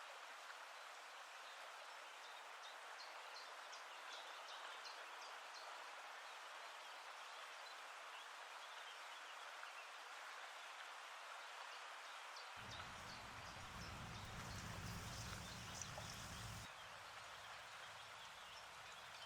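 Samosas frying in hot oil: a faint steady sizzle with small crackles. A low rumble joins for a few seconds past the middle and cuts off abruptly.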